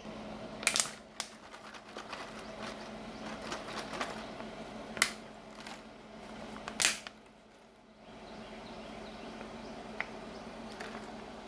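A few sharp clicks and knocks over a steady low electrical hum; the two loudest come about five and about seven seconds in.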